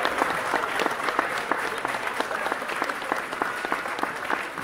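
Applause: many hands clapping in a dense, steady patter that slowly dies down.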